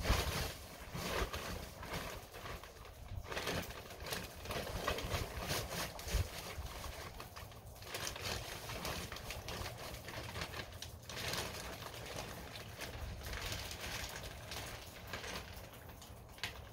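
Dirt being scooped out of a bag and poured into a container: irregular rustling and scraping strokes, with a few dull thumps near the start.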